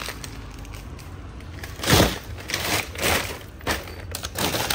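Plastic bags rustling and crinkling as plastic-wrapped frozen seafood is handled and shifted about in a chest freezer, with a louder crunch about two seconds in.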